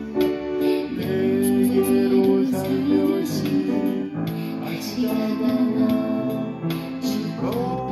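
Upright piano playing a ballad: a melody over sustained chords that change every second or so.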